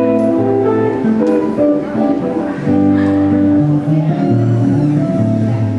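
Electric guitar music: a melody of held, sustained notes played over a low bass line.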